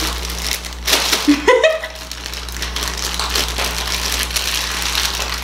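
Plastic bag crinkling and crackling as it is handled, squeezed and twisted, a steady run of small crackles.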